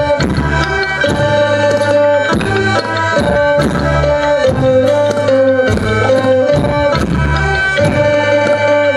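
Live band music for a Thai folk dance: a steady drum beat under a melody of long held notes.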